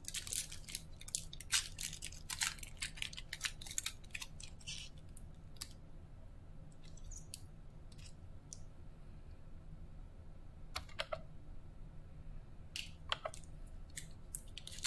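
Foil trading-card pack wrappers crinkling as they are handled, a quick flurry of crackles over the first few seconds, then a few scattered crinkles.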